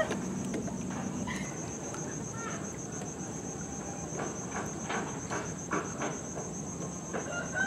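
Insects chirring in a steady, fast-pulsing high trill, with a few faint taps in the middle.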